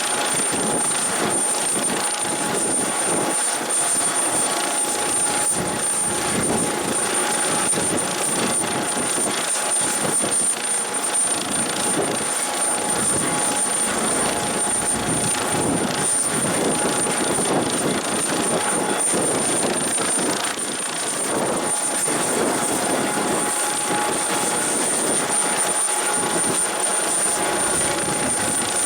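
Turbine helicopter running steadily, rotor and engines together, with a constant high-pitched turbine whine over the rotor noise.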